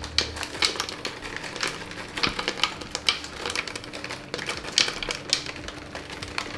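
Blueberries dropping a few at a time into a plastic blender jar: irregular light clicks and taps, several a second.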